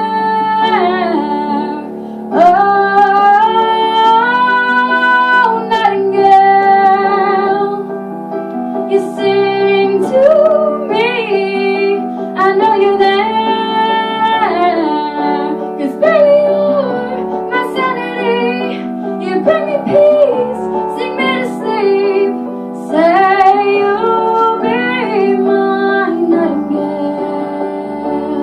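Female voice singing wordless held notes and runs with vibrato, in phrases of a few seconds, over sustained piano chords.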